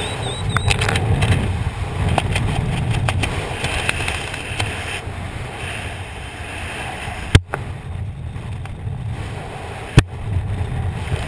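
Wind buffeting the camera's microphone during a descent under an open parachute canopy, a steady low rumble. Two sharp knocks break through it, about seven and ten seconds in.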